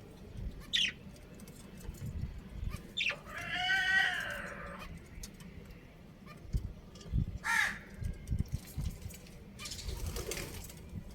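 Birds calling: a short falling call near the start, a longer call about three seconds in, and another falling call past the middle, with low knocks underneath.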